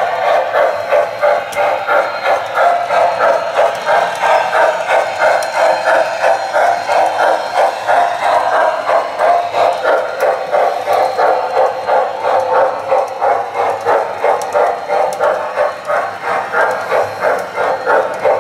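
Model freight train running on the layout's track behind the bridge: a steady rolling rumble of wheels on rail, pulsing in a regular clatter about three times a second.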